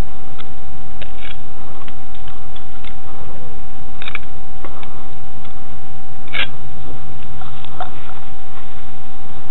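Scattered clicks and rustles of handling close to a small camera's microphone, over a steady high tone and hiss; the loudest click comes about six and a half seconds in.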